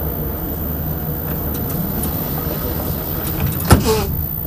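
Metro train running with a steady low rumble as it pulls out of the station, with a single sharp clunk about three and a half seconds in.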